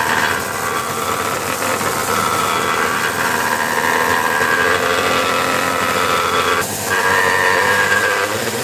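Bench belt sander running with a turned wooden ball pressed against its vertical belt, giving a steady sanding hiss that shifts in pitch as the wood is worked, with a brief lull about seven seconds in.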